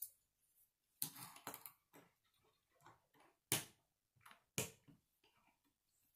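Plastic K'nex connectors and rods clicking and snapping together by hand: a string of sharp separate clicks, the loudest two about three and a half and four and a half seconds in.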